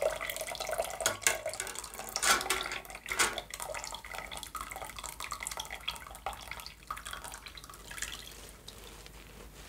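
Tea-coloured water draining from a cloth bag of pasteurized straw into a stainless steel stockpot, splashing and dripping. A few louder splashes come in the first three seconds, then it eases to quieter, steadier dripping as the straw drains.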